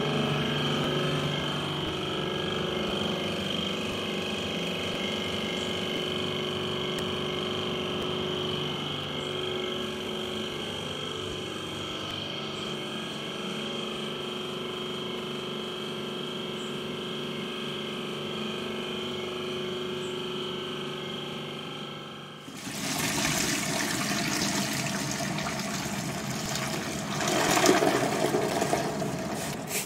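Carpet extraction machine's vacuum motor running with a steady whine, cutting off sharply after about twenty-two seconds. It is followed by dirty water gushing from the machine's drain hose into a bucket.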